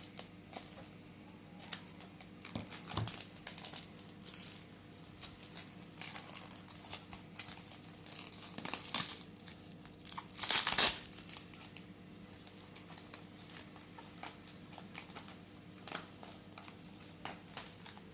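Packaging crinkling and rustling as a delivery pack is unwrapped by hand, in irregular crackles with a louder tearing, crumpling burst about ten and a half seconds in.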